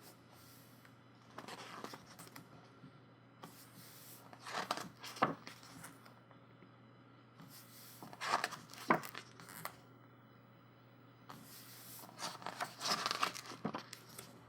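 Pages of a photobook being turned, the paper rustling in about four bursts a few seconds apart.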